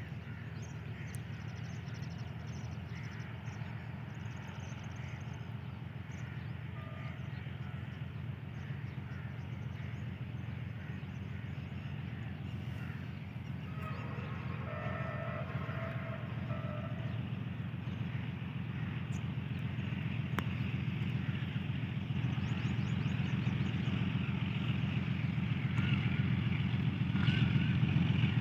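Diesel locomotive engine running under power as the train approaches, a steady low drone that grows louder throughout, with bird calls over it.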